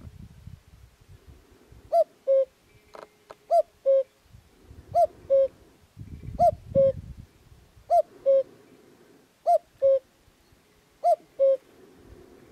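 Male common cuckoo singing its two-note "cu-coo", the second note lower than the first. It calls seven times, about one call every second and a half.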